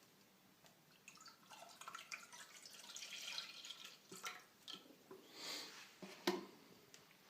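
Milk being poured into a container, a faint trickling and splashing that swells about five seconds in, with a couple of light knocks.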